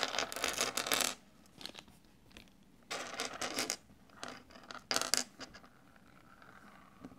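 Small servo-mounting parts (bolts, metal sleeves, rubber grommets) tipped out of a small plastic bag onto a wooden tabletop. The bag crinkles and the parts clatter out in the first second, then they clatter again around three and five seconds in as fingers push them about, with light clicks in between.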